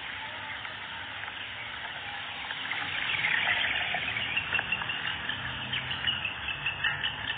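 A crowd of young chicks of a local Arab chicken breed peeping all at once, a dense high chirping. It grows louder about three seconds in.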